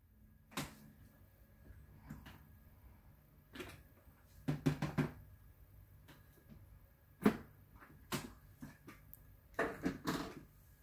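Scattered light knocks and clicks of things being handled, a few at a time, with a small cluster about four and a half seconds in, single sharp knocks around seven and eight seconds, and another cluster near the end.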